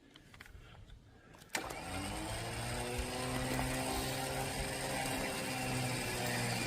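A winch motor switches on about a second and a half in and runs steadily, rising briefly in pitch as it comes up to speed, then holding an even hum.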